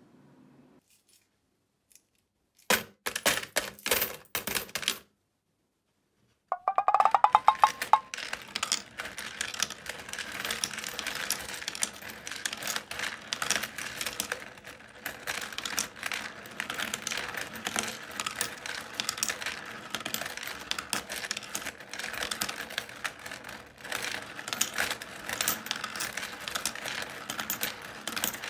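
Euro coins clattering and clinking through a hand-cranked, 3D-printed plastic coin sorter as they are turned round the sorting wheel and drop down the ramp into their slots. A short burst of clattering comes about three seconds in, then after a pause a dense, steady clatter sets in with a brief metallic ring at its start.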